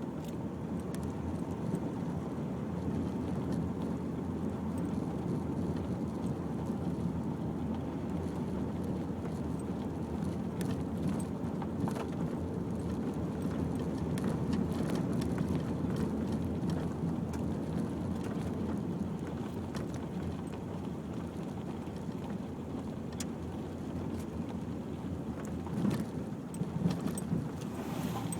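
Nissan X-Trail driving slowly over a rough unsurfaced green lane, heard from inside the cabin: a steady low rumble of engine and tyres with scattered clicks and knocks, and a few louder jolts near the end.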